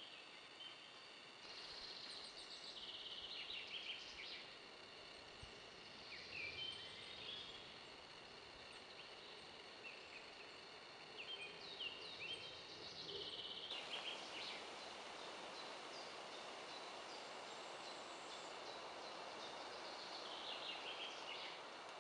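Small songbirds singing: short, high chirping phrases every few seconds over a faint, steady hiss of outdoor ambience.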